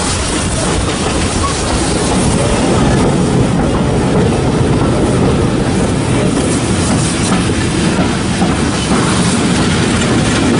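Heritage railway carriage running along the track, heard from an open carriage window: a steady, loud running noise of wheels on the rails mixed with rushing air.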